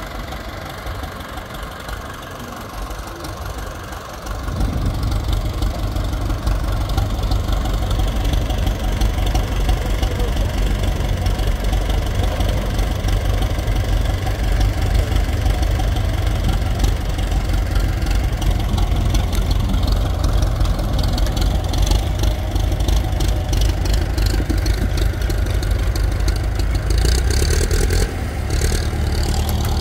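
An engine running steadily, growing louder about four seconds in, with some rapid clicking near the end.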